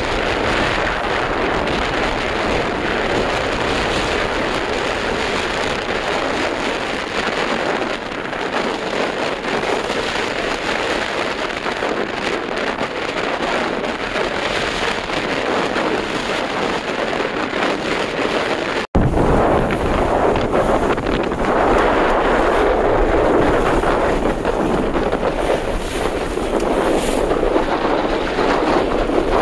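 Wind buffeting the microphone on a sailboat crossing choppy water, over a steady wash of waves. There is a momentary dropout about two-thirds of the way through, after which the wind rumble is heavier.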